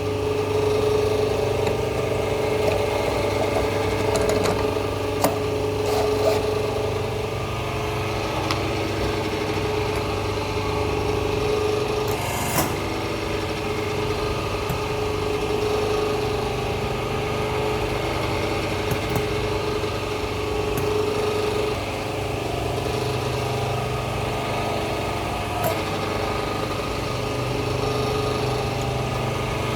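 Hydraulic hose crimping machine's power unit (electric motor and pump) running with a steady hum, with a few sharp metallic clicks as the crimper die pieces are handled during a die change.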